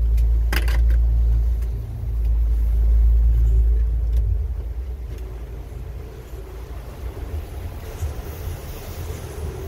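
Patrol boat's motor running with a heavy low rumble, easing off about four to five seconds in as the boat slows to come alongside the inflatable. Two short knocks come under a second in.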